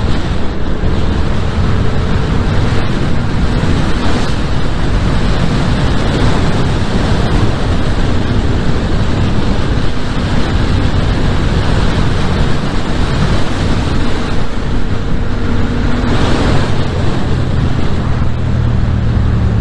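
Heavy wind noise on the rider's microphone over the Yamaha MT-07's parallel-twin engine running steadily at road speed. An oncoming car passes near the end.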